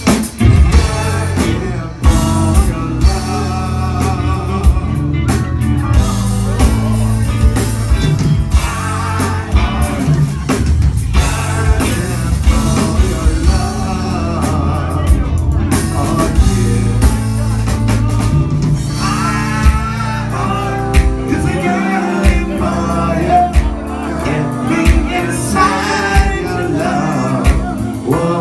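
Live band playing: singing at the microphones over electric guitar, keyboard and a drum kit, with the sung melody coming forward in the second half.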